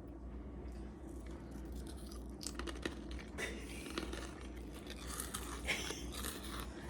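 Crinkling and crunching from handling Ritz crackers and their wrapper: scattered crackly rustles and snaps that start about two and a half seconds in.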